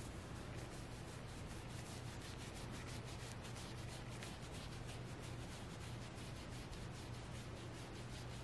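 Fingers scratching the soft plush fabric of a Squishmallow stuffed toy in rapid, even strokes, over a low steady hum.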